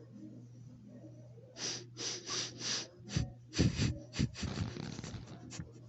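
Puppy sniffing right at the microphone: a run of quick, short sniffs starts about a second and a half in. It turns into denser snuffling with a few low thumps, then trails off into small clicks near the end.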